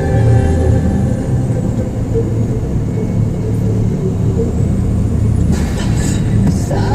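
Truck on the move: a steady low engine and road rumble, with a few rattling clicks near the end.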